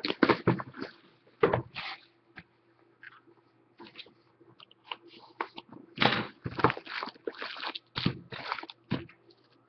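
Crinkling and tearing of the plastic wrapping on a sealed box of hockey trading cards as it is opened, in irregular bursts of crackle. There is a busy spell in the first couple of seconds, a quieter stretch, then more crinkling from about six seconds in.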